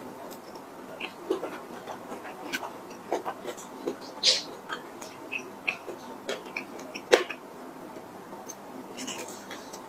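Close-miked chewing and mouth sounds of a person eating a cream puff: soft wet smacks and irregular sharp clicks, the loudest about seven seconds in.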